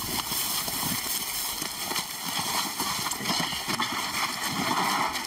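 Several people's footsteps and shuffling in dry grass, with rustling and irregular thuds, as a team carries and hauls a heavy sedated lion.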